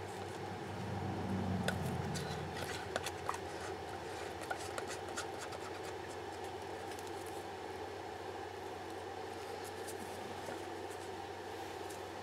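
Light scratching and small clicks of a stir stick scraping the last resin out of an upturned cup into a mold, busiest in the first half, over a steady low hum.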